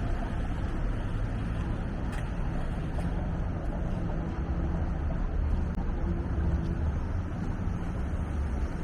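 Steady rumble of downtown street traffic, engines and tyres on a busy city street, with a faint hum that rises out of it for a few seconds in the middle.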